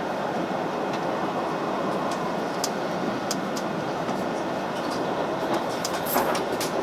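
Running noise heard inside the passenger car of a JR Shikoku 8000 series electric limited express at speed: a steady rumble with scattered sharp clicks, the clicks coming more often near the end.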